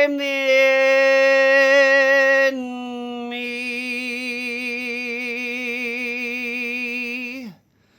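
A single voice chanting long held vowel tones: one steady note, then about two and a half seconds in a step down to a slightly lower note sung with a wavering vibrato, held until it fades out near the end.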